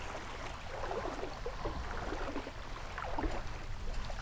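Small ripples lapping and splashing irregularly against a kayak's hull and the sandy shallows, over a steady low rumble.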